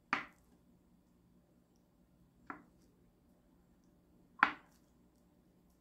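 Kitchen knife slicing down through a block of firm tofu and knocking on a wooden cutting board, three separate knocks about two seconds apart, the last the loudest.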